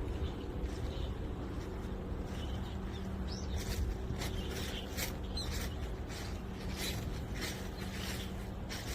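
Footsteps crunching through dry fallen leaves, about two steps a second, growing clearer a few seconds in, over a low steady hum.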